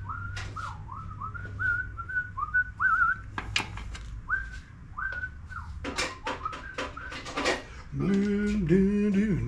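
A man whistling a string of short notes to himself, then a few sharp clicks as small parts or tools are handled. Near the end comes low humming.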